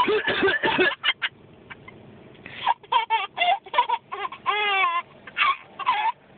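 An adult coughing in a few short bursts at the start, then a baby laughing at it in high-pitched, squealing bursts.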